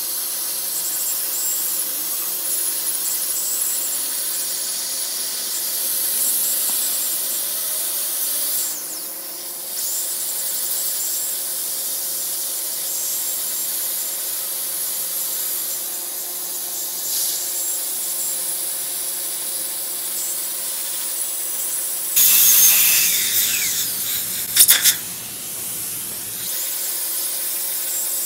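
Dental handpiece running steadily with a high hiss as it grinds the leftover bracket adhesive off the teeth after braces removal. A louder, rougher stretch comes about three-quarters of the way through, with a sharp brief burst inside it.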